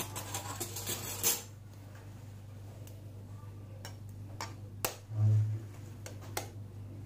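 A metal spoon tapping on a raw eggshell to crack it open: several sharp ticks spread over a couple of seconds, with a dull low thump in the middle of them.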